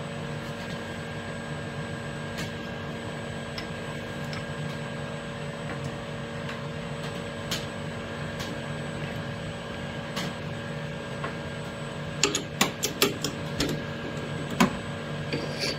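Steady machine hum with several fixed tones. From about twelve seconds in comes a quick run of sharp metal clicks and clinks as the lathe chuck is worked by hand and the probe holder is taken out.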